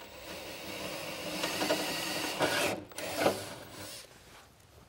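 Power drill running under load, its bit cutting through a metal bumper to enlarge a pilot hole to full size. It dips briefly near three seconds in and stops about four seconds in.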